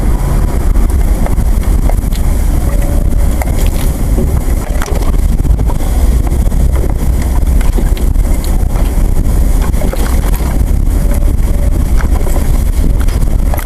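Off-road vehicle driving over a rough forest track, heard through a hood-mounted camera: a steady low engine and drivetrain rumble with wind buffeting the microphone and scattered short knocks.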